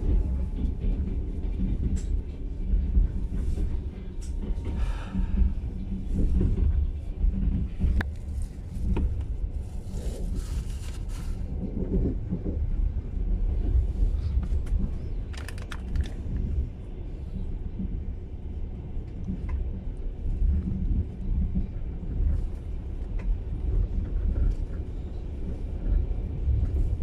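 Passenger train in motion heard from inside the carriage: a steady low rumble of wheels on track, with occasional short knocks and a few brief hisses.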